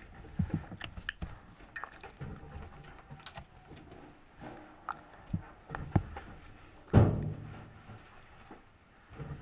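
Irregular knocks, clicks and clunks of objects being handled, with one loud thud about seven seconds in that rings on briefly.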